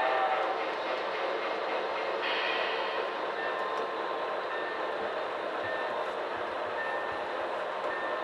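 Model freight train running on a model railroad layout, its sound-equipped steam locomotives and cars making a steady train-running sound.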